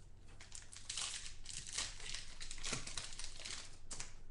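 Crinkling of plastic trading-card packaging as football cards are handled between pulls: a dense, crackly rustle with a few sharper ticks, starting about half a second in and easing off near the end.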